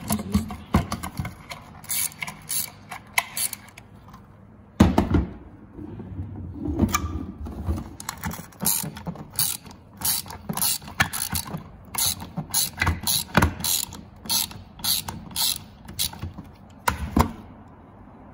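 Ratchet wrench with a 10 mm socket and extension clicking in short runs as it unscrews the nuts from the back of a Ford grille emblem. A couple of louder knocks come about five seconds in and near the end.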